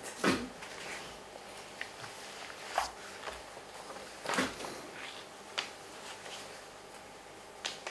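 A few faint, separate clicks and taps over quiet room tone, the most distinct about four and a half seconds in.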